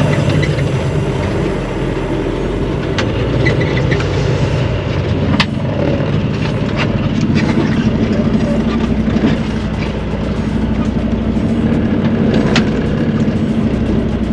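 Truck engine running, heard from inside the cab: a loud, steady low drone, with a few sharp clicks or rattles.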